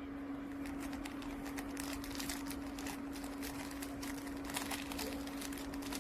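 Irregular crinkling and clicking of the gel pads' plastic packaging being handled, over a steady low hum.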